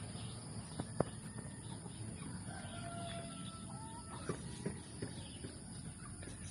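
Young gamefowl chickens; one gives a drawn-out call of about a second and a half that steps up in pitch near its end. A few sharp clicks sound about a second in and again near the end.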